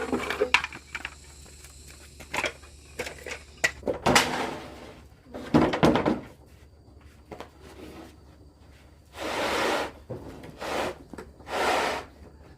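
Hand work on a house: a scattering of knocks and heavier thuds, the loudest about four and six seconds in, then three short scraping sounds toward the end.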